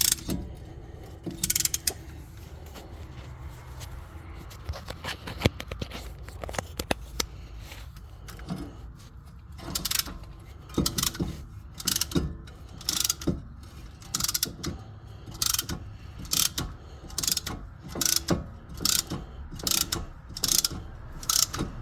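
Ratcheting brake caliper compression tool being worked by hand, its pawl clicking as the plates are spread to push the caliper piston back. Scattered clicks at first, then a steady run of ratchet strokes about one a second from about halfway through.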